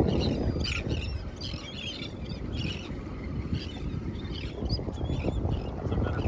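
Wind and water rushing steadily around a small boat, with scattered high chirping calls of birds over the water.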